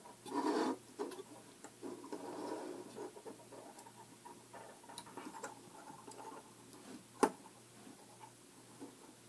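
Hands handling a toy's small circuit board, wires and resistor: light rustling, scraping and small taps, with one sharp click about seven seconds in.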